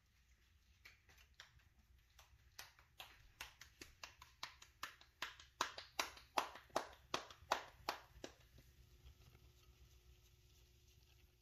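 A regular run of sharp taps, about three a second, growing louder toward the middle and stopping about eight seconds in.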